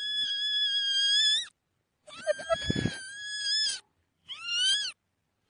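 A cat's meows played in reverse: three high, drawn-out calls, the second the longest and the last short, each swooping up in pitch and cutting off abruptly.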